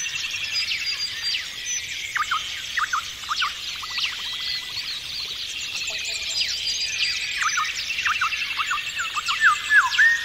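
Several birds singing and calling over one another, a chorus of chirps, trills and short whistles, with a louder looping whistled phrase near the end.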